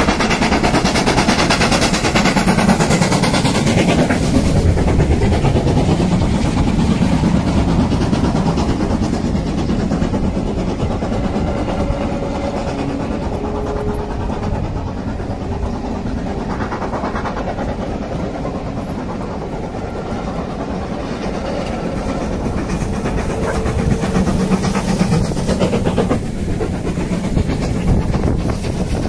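A steam train running past, with a steady loud rumble from the locomotive and its carriages on the track.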